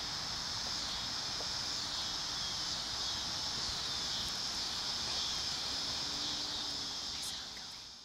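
Steady high-pitched drone of singing insects, fading out near the end.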